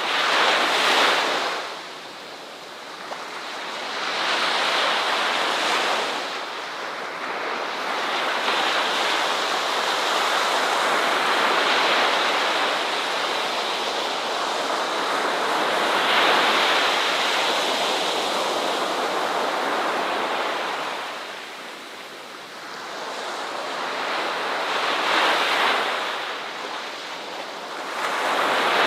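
Ocean waves breaking and washing on a shore: a hissing rush that swells and fades in slow surges, with a long sustained wash through the middle and fresh surges near the end.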